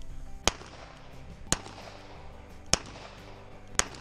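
Four shots from a Smith & Wesson 686 revolver, fired one at a time about a second apart, each with a short echo, with music playing underneath.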